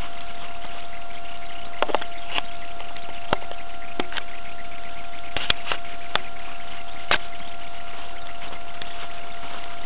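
Steady hiss with a constant high whine, broken by about ten irregular sharp crunches of footsteps in snow during the middle of the stretch.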